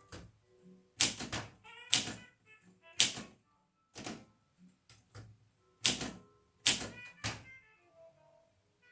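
An Olympia SM 2 portable manual typewriter being typed on slowly. Its typebars strike in sharp, irregular clacks, about a dozen in all, some coming in quick pairs or triples.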